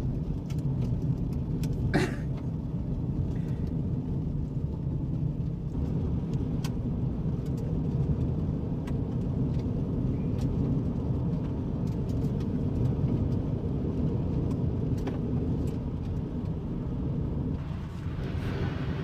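Steady low rumble of a car driving, its engine and road noise, with scattered sharp ticks, the strongest about two seconds in.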